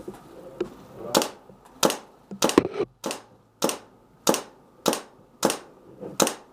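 Airsoft gun firing single shots, about nine sharp cracks, roughly one every two-thirds of a second, with one quick double shot near the middle.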